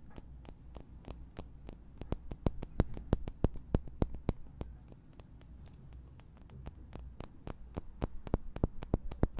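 Two small wooden blocks tapped together in a quick, uneven run of sharp clicks, about three or four a second. The clicks grow louder about two seconds in, soften briefly past the middle, then pick up again near the end. This is a left-or-right ear tapping test.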